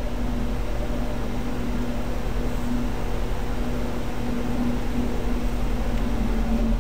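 Steady low hum with an even hiss behind it, unchanging throughout: constant background noise of the kind a running fan or an open microphone makes.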